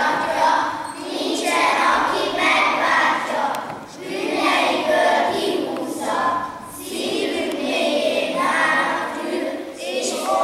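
Children's choir singing together in Hungarian, in phrases a few seconds long with short breaks between them.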